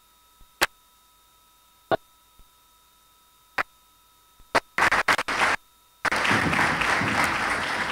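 A few isolated sharp claps, then a quick cluster of them, and about six seconds in a full round of audience applause starts and carries on.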